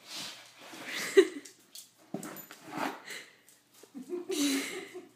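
A dog with its head stuck in a cardboard cereal box, giving a few short whines as it scrambles about. Knocks and scuffs come in between, one sharp knock about two seconds in.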